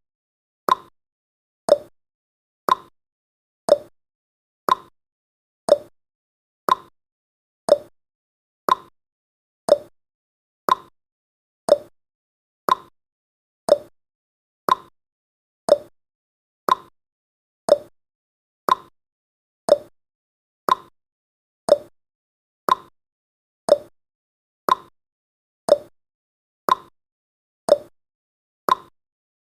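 Ticking sound effect of a countdown timer: one short click each second, alternating between a higher and a lower tick like a clock's tick-tock.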